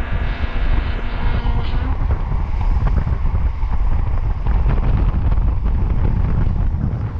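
Heavy wind rush buffeting an action camera's microphone at downhill skateboarding speed, over the rumble of longboard wheels rolling on asphalt. A steady high whine rides on top for about the first two seconds.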